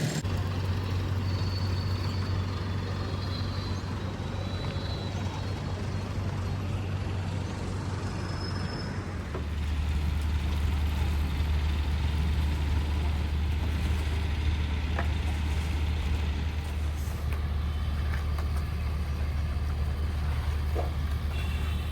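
Heavy diesel engine of a construction vehicle running steadily with a low drone. About nine seconds in, its note drops a little lower and it gets slightly louder, then holds steady.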